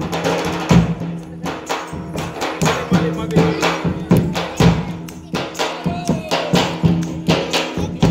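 Live Rajasthani folk music: a quick steady beat of drum strokes and clacking hand percussion over a steady drone, with a faint sung or played melody line.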